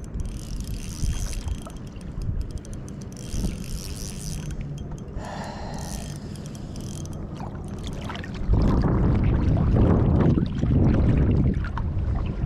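Wind and water noise aboard a small fishing boat, low and unsettled at first. About two-thirds of the way through it turns into a much louder, fluttering rush.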